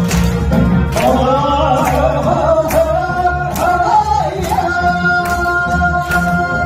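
A man and a woman singing a Korean trot duet through microphones over backing music with a steady drum beat. The voices come in about a second in and hold long notes in the second half.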